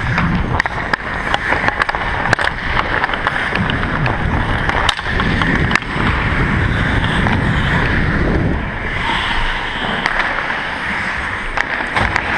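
Ice hockey skates carving and scraping on the ice, with frequent sharp clicks and taps of sticks and puck, over a low rumble of movement on a helmet-mounted camera.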